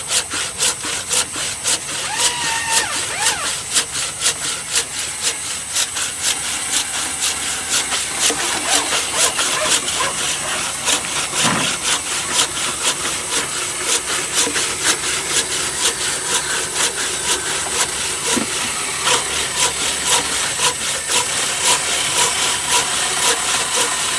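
Wood being sawn by hand: a steady run of saw strokes at about two to three a second.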